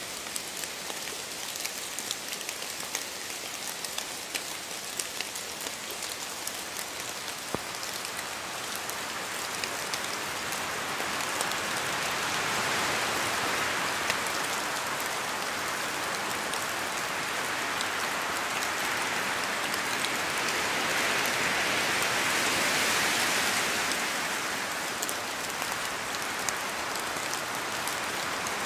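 Steady rain falling on a surface, with many separate drop ticks. It grows heavier from about a third of the way in, is heaviest just past the middle, and eases off near the end.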